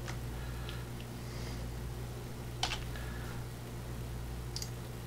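Computer mouse clicking twice, sharp and short, about two and a half seconds in and again near the end, over a steady low hum.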